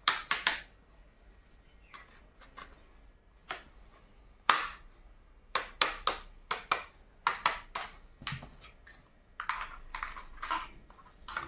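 Plastic toy hammer and toy tools tapping and clicking against a plastic toy auto-rickshaw: sharp, irregular taps in short clusters, the loudest about four and a half seconds in.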